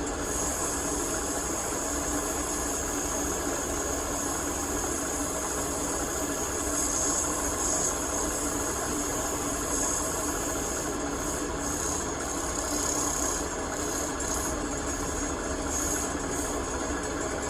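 Wood lathe running steadily as a table leg is turned, with a high hiss that swells and fades from time to time.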